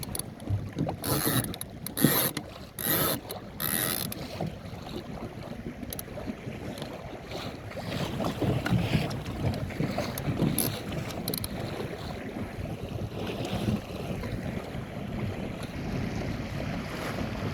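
Small open sailing dinghy, a Magnum 422, under way in strong wind: a steady rush of wind on the microphone and water along the hull. A few sharp clatters come in the first few seconds and twice more about two thirds of the way in.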